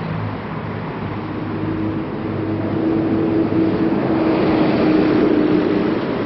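Road traffic on a city avenue, growing louder from about halfway in as a box truck drives past close by, with a steady low engine tone.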